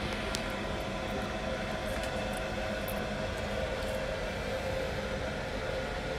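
Steady whirring hum of a kitchen appliance's fan running, with a few faint light clicks over it.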